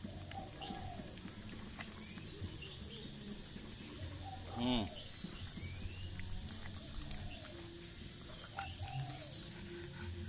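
Outdoor ambience of an insect, a cricket-like high steady trill, running throughout, with birds calling now and then in short arched calls. A louder falling call sounds about halfway through.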